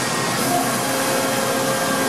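Mori Seiki SL8-C CNC lathe running with a steady whirring hum, its turret slide traversing. A faint steady whine joins the hum about half a second in.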